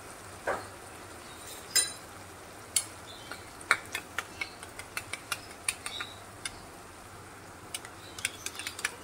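A steel spoon clinking and tapping against a bowl and a pot. There are a few single knocks at first, then quicker runs of clicks, over a faint steady sizzle of onion masala frying in oil.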